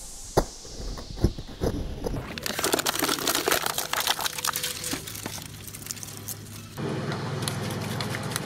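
Twin-shaft shredder's cutter discs crunching and tearing a plastic cola bottle, a dense crackling that starts with a few knocks and builds after about two seconds. Near the end the crunching stops and a steady hum takes over.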